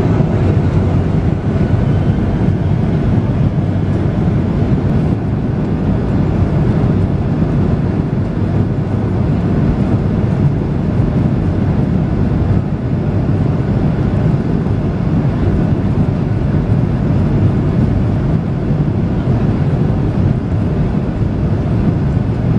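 Airliner engines and airflow heard from inside the passenger cabin during takeoff: a loud, steady low rumble with no breaks.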